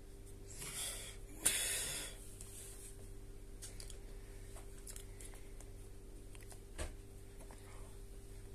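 A person blowing out breath twice, short and hard, about a second in, followed later by a single faint click, over a steady low electrical hum.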